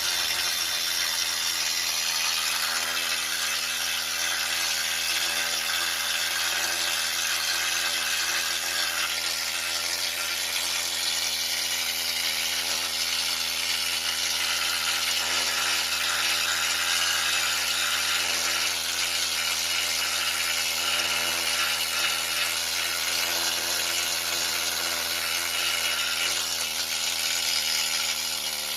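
Pneumatic needle gun (needle scaler) running continuously, its needles hammering flaking rust and scale off the steel frame of a 1955 Dodge truck. A steady, dense, high rattle with a hum beneath it, cutting off right at the end.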